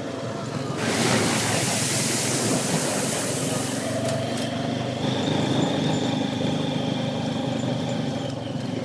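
ATV engine running as it fords a shallow creek, with loud splashing water for about three seconds starting about a second in, then the engine running on steadily.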